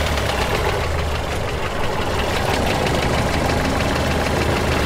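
A vehicle engine idling steadily, with a low hum and a fast rattle.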